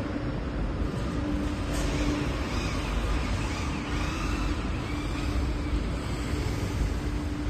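Machinery running steadily with a held mid-pitched hum over a constant noisy rush, typical of a machine shop floor with machines at work.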